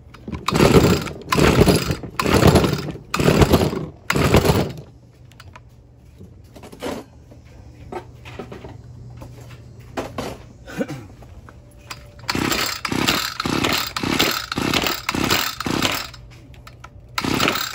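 Echo SRM-2620 string trimmer's two-stroke engine being pull-started with the choke on: repeated recoil-starter pulls crank it over without it catching. There is a run of about five pulls, a pause, then a quicker run of about seven more, and one last pull near the end.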